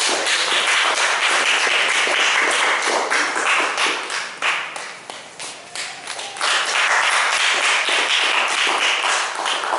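A roomful of people clapping, a dense patter of many hands; the clapping thins for a couple of seconds about halfway through, then swells again and dies down near the end.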